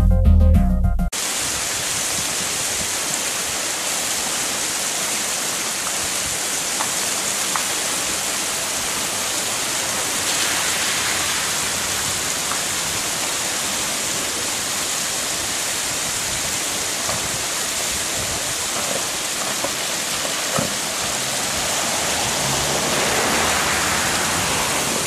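A TV station's intro jingle cuts off about a second in. A steady rushing hiss of water follows, swelling slightly near the middle and again near the end.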